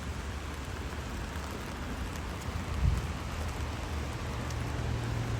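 Steady rain falling. A dull low thump comes about three seconds in, and a low steady hum joins near the end.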